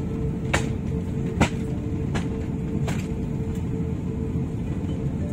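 Steady low cabin rumble of an Airbus A350-1000 taxiing, its Rolls-Royce Trent XWB engines at low thrust, with a thin steady hum. Four sharp knocks come through about three quarters of a second apart, the second the loudest.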